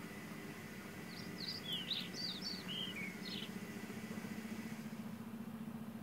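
A small songbird twittering: a roughly two-second phrase of quick, high, varied chirps about a second in, over a steady low hum.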